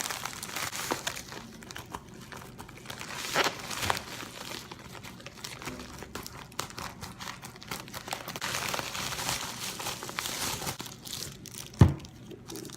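Packaging crinkling and rustling as a mailed box of razor goods is unboxed by hand, with scattered small clicks and a sharp knock about a second before the end.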